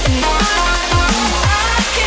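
Electronic background music with a steady beat: kick drums that drop in pitch, about two a second, under synth melody lines.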